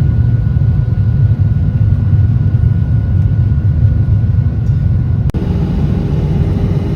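Airliner cabin noise: a loud, steady low rumble. About five seconds in it cuts to another stretch of similar rumble with a faint steady hum.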